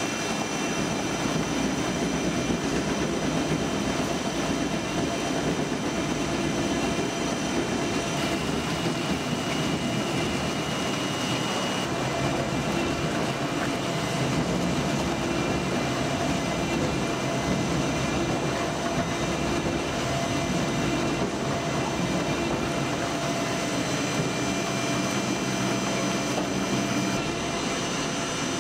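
WEIMA Spider 1500 H industrial shredder running under load as it shreds car interior trim panels: a steady, dense mechanical noise with several steady high tones over it.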